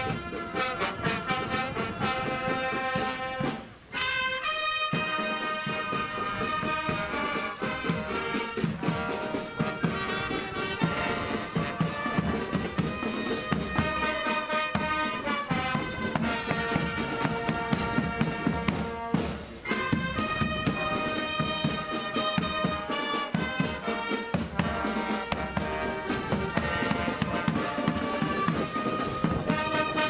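A marching brass band playing live, with trumpets and trombones over a steady drum beat. The music breaks off briefly about four seconds in, and again for a moment about two-thirds of the way through.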